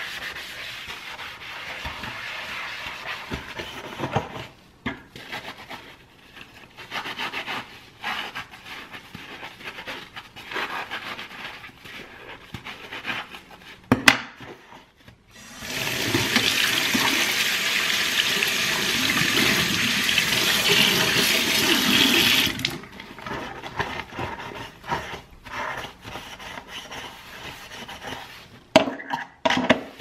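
A sponge scrubbing a soapy kitchen sink basin in uneven rubbing strokes. About halfway through there is a sharp click, then the tap runs steadily for about seven seconds while a cloth is rinsed under it, and the scrubbing then resumes.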